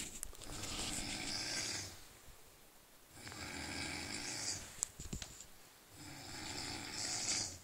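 A sleeping man snoring: three long snores, each lasting one and a half to two seconds, about three seconds apart.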